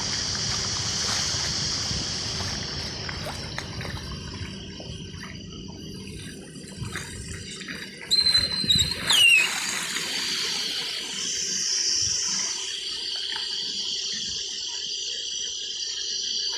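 Rushing floodwater from heavy rain, a steady hiss; the low rumble under it drops away a few seconds in. A little after halfway a short high whistling sound slides down in pitch, the loudest moment.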